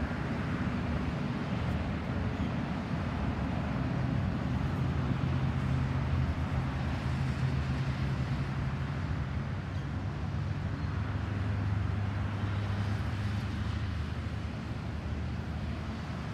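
Steady road traffic noise: a low hum of vehicle engines with tyre noise from a nearby road, swelling a little now and then.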